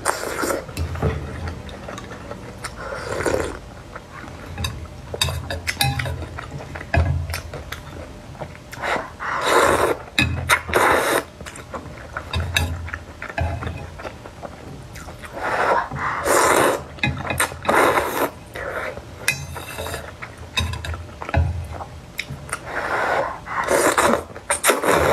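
Close-miked eating of rice noodles in broth: several long slurps a few seconds apart, with chewing and wet mouth clicks in between.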